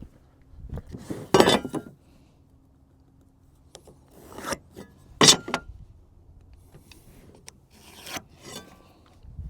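Wooden shelving boards being handled: four short scrapes and rubs of board on wood, with pauses between.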